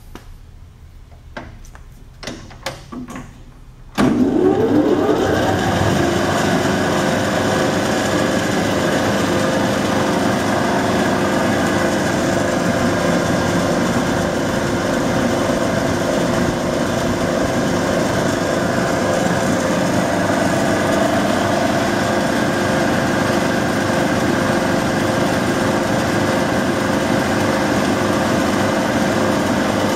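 Clausing 5914 metal lathe with hydraulic variable-speed drive being started. A few clicks of the controls come first. About four seconds in, the 2 hp three-phase motor switches on and the spindle spins up with a rising whine, then runs steadily with a hum and whine.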